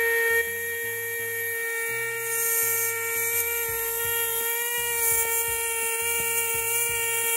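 ZOIC Balaur fossil-preparation air scribe (pneumatic air pen) running at its high beats-per-minute setting: a steady, high-pitched buzz with air hiss as its fine tungsten carbide stylus works the rock. At this setting the short, light, rapid strokes pulverise the matrix rather than chip it.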